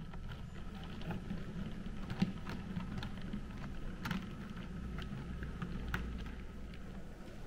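H0e narrow-gauge model train, headed by a model ÖBB class 2095 diesel locomotive, running on the track: a steady motor hum with a thin whine over it and irregular light clicks from the wheels on the rails.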